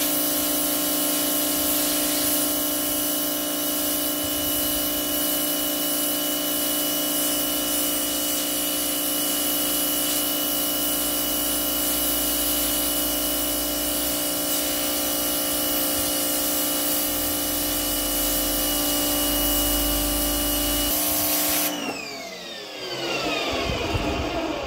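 Parkside PHD 170 D2 electric pressure washer running steadily, its motor and pump humming under the hiss of the water jet hitting patio paving. About 22 seconds in it shuts off, and its whine falls in pitch as the motor spins down.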